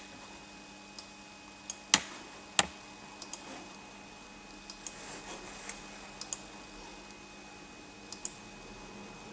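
Scattered clicks of a computer mouse and keyboard, about a dozen in all and several in quick pairs, with two louder clicks about two seconds in.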